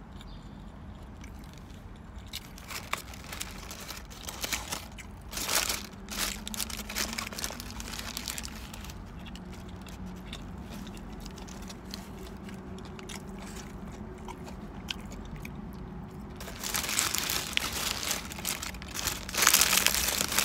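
Close-up chewing and crunching of a bitten lumpia burger, with small wet mouth noises. Near the end, loud crinkling of the paper wrapper as it is handled, over a faint steady low hum.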